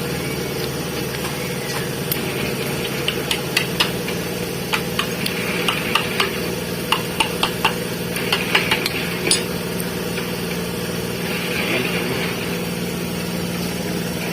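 Light metallic clicks and taps as piston rings are worked onto a diesel piston by hand, a dozen or so between about three and nine seconds in. They sit over a steady, engine-like hum.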